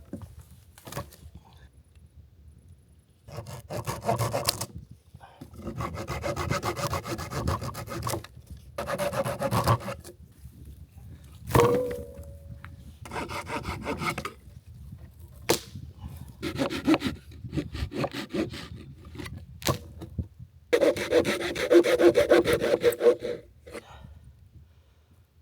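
Hand saw cutting through wood in several spells of quick back-and-forth strokes, with short pauses between them.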